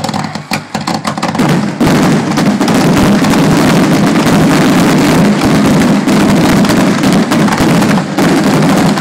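Fireworks going off in a rapid barrage. Quick crackling pops come first; from about two seconds in the bangs run together into one continuous loud rumble that keeps the microphone near its limit.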